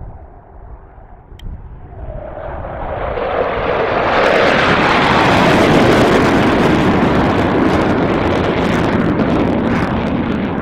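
Military fighter jet flying past at low level: the engine noise swells over a couple of seconds to a loud, crackling peak, then holds loud.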